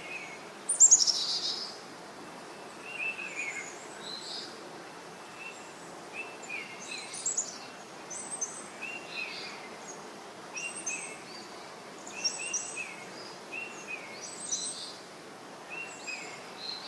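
Birds singing in the open: repeated short chirps and whistles over a steady hiss of background noise, the loudest a sharp sweeping call about a second in.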